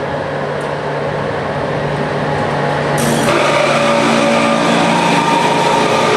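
GFR electric locomotive 43-0146-1 hauling a freight train passes close, its steady hum growing louder. About three seconds in, as the locomotive body goes by, the sound turns brighter, with several steady whining tones over a hiss.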